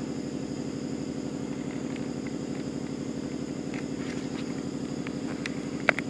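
A motor-driven machine running steadily with a low hum and a fast, even pulse. A sharp click comes just before the end.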